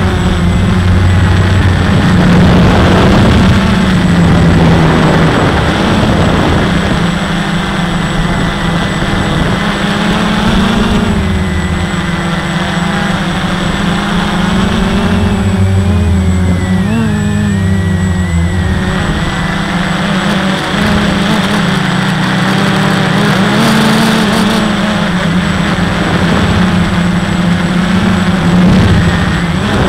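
Walkera QR X350 quadcopter's motors and propellers running in flight, heard from the onboard camera, with the pitch repeatedly rising and falling as the throttle changes.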